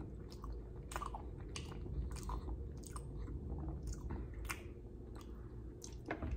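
A person chewing a mouthful of soft shell-pasta mac and cheese, with irregular wet mouth clicks and smacks.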